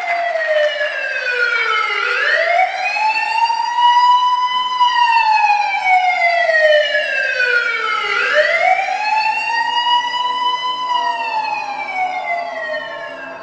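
A siren wails through the theatre sound system, its pitch sliding slowly up, holding, then falling away. Two full rise-and-fall cycles of about six seconds each.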